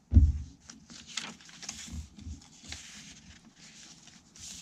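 Paper pages of a handmade junk journal being handled and turned by hand: soft rustling and brushing with a few small clicks, and a low thump just after the start.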